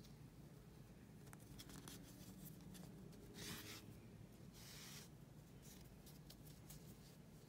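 Faint rubbing and rustling of yarn being drawn through crocheted stitches with a tapestry needle, with two brief swishes about three and a half and four and a half seconds in, and a few light clicks.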